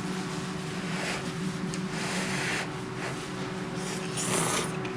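Steady low machine hum, with two short rustling sounds, one about two seconds in and one near the end.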